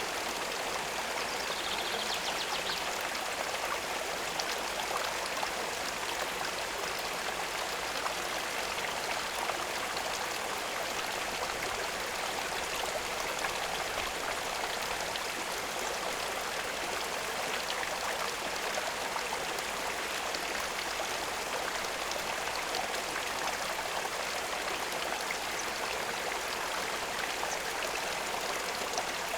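Steady sound of running water flowing into a pond, even and unbroken throughout.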